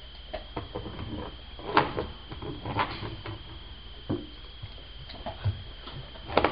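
A dog gnawing and chewing a raw beef bone: irregular clicks and scraping of teeth on bone. There are a few louder knocks about two and three seconds in and again near the end.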